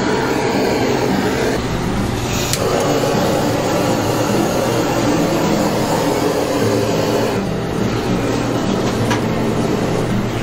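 Handheld gas kitchen torch running with a steady rushing hiss and low hum as its flame sears and dries the honey glaze on roast chickens. There is a brief click about two and a half seconds in.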